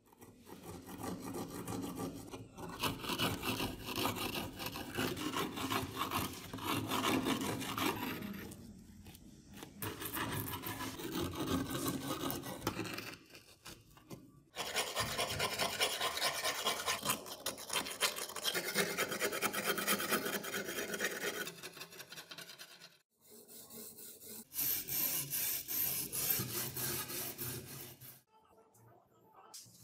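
Hard crust of dried earth and rust being scraped and chipped off an antique tanto blade with a metal tool and scrubbed with a wire brush: rasping scraping strokes in several stretches, broken by short pauses.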